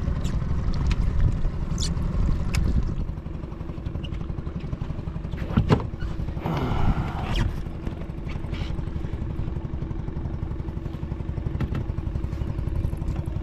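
Boat engine idling steadily with a fast low throb, dropping a little in level about three seconds in. A few sharp clicks and a brief hiss near the middle sit over it.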